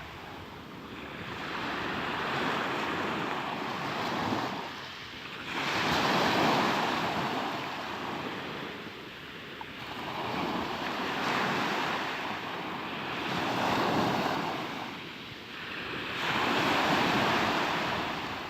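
Sea waves washing onto the shore, swelling and falling away in surges every three to five seconds.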